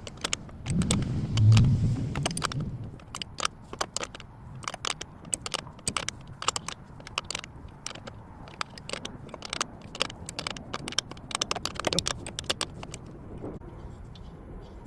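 Metal wrenches clicking and clinking in irregular strokes while nuts are worked loose on a brake master cylinder. A short low rumble, the loudest sound, comes about a second in.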